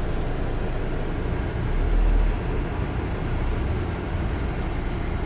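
Car in motion: steady road and engine noise, swelling briefly about two seconds in.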